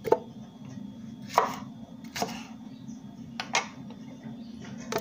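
Onion being cut with a knife on a wooden cutting board and the pieces dropped into a plastic blender jar: about five separate sharp knocks, roughly a second apart, over a steady low hum.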